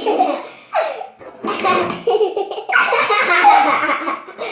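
People laughing hard in several bursts, the longest and loudest near the end.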